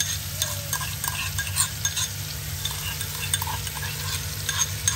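Ginger-garlic paste frying in hot oil in a kadhai, sizzling steadily with many small crackles and pops as it is stirred in the pan.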